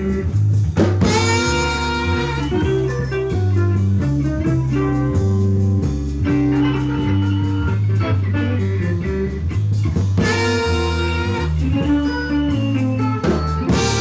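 Small jazz band playing live: a saxophone plays the melody over guitar, keyboard, a stepping bass line and drums with steady cymbal ticks. The saxophone lines are brightest about a second in and again about ten seconds in.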